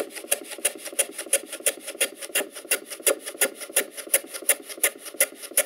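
Metal hand plane run on its side along a shooting board in quick, short strokes, about three a second, shaving the end off a small wooden plane wedge. The strokes stop abruptly near the end.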